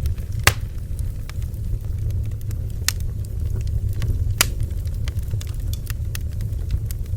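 Bonfire crackling: a steady low rumble with frequent small pops and snaps, three of them sharper, about half a second, three seconds and four and a half seconds in.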